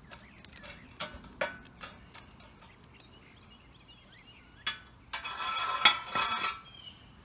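Lump charcoal being raked level with a metal poker inside a steel charcoal insert: a few scattered clinks, then about a second and a half of loud scraping and clattering of metal and charcoal pieces near the end.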